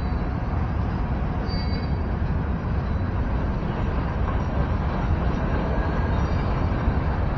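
Freight train cars rolling through a road crossing, giving a steady, unbroken rumbling noise.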